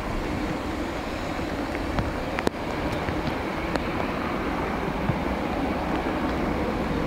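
Jet airliner's engines at takeoff thrust during its takeoff roll on a wet runway, a steady rush of engine noise heard from beside the airfield, with a few sharp clicks on top.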